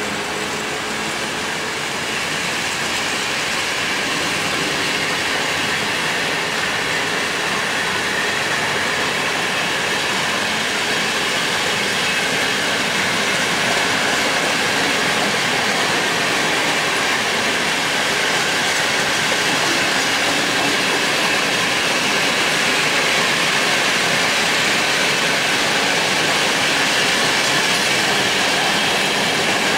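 Low-sided Eamos gondola wagons of a freight train rolling past, their steel wheels running on the rails with a steady rumble and hiss that grows slightly louder.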